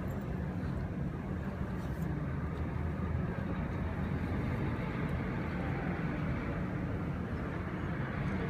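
Steady low rumble of vehicle noise, with no break or clear rhythm.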